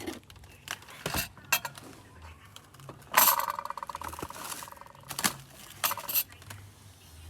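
Metal kitchenware clinking and clattering: a few sharp knocks, then a longer ringing clatter about three seconds in, and more clinks about five and six seconds in.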